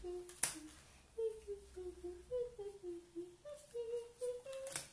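A person humming a tune in short stepped notes, with two sharp clicks, one about half a second in and one near the end.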